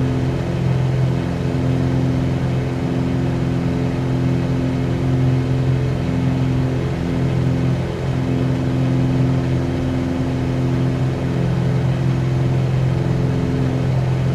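Cessna 182Q's six-cylinder Continental O-470 engine and propeller droning steadily in flight, a constant hum with a slight waver in pitch.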